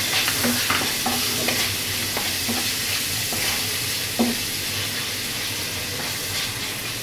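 Sliced onions sizzling in hot oil in a frying pan, stirred with a wooden spatula that knocks and scrapes against the pan now and then, once more sharply about four seconds in.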